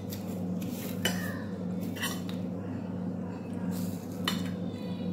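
Metal cutlery clinking against a glass bowl while eating: several separate clinks over a steady low hum.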